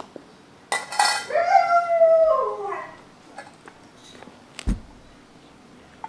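A dog howls once, a drawn-out call of about two seconds that slides down in pitch, typical of an Alaskan malamute's howl. At the start a steel pet bowl clinks as it is set down on paving stones, and there is a dull thump near the end.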